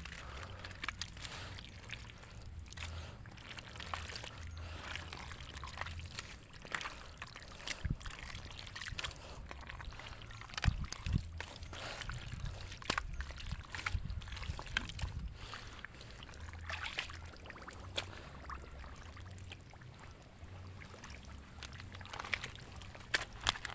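Shallow, muddy water sloshing and splashing throughout, broken by many scattered sharp splashes and knocks: a pond pumped nearly dry being worked for fish.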